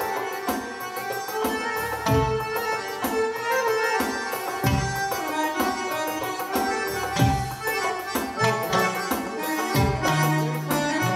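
Live Arabic band music: melodic instruments playing over hand-drum strokes.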